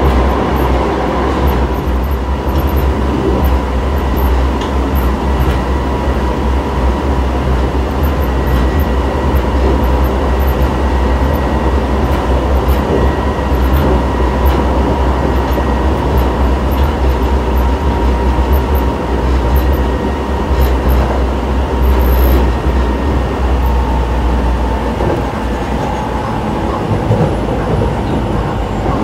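Osaka Metro 24 series subway train with Hitachi IGBT inverter control running at speed, heard from inside the car: a loud, steady wheel-and-track rumble with a thin steady whine over it that dips slightly in pitch near the end.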